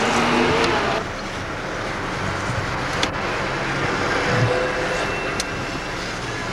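Car driving along a wet street, heard from inside the car: steady road and tyre noise with engine hum. It is louder for about the first second, and there is a sharp click about three seconds in.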